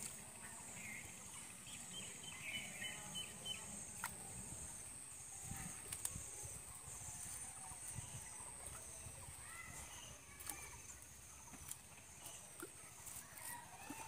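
Quiet rural outdoor ambience: a steady high-pitched insect drone, with a few faint chirps and occasional soft clicks and rustles.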